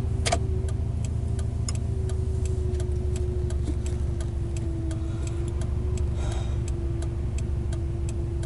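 Car turn-signal indicator ticking steadily, about three clicks a second, over the car's engine idling with a steady low hum.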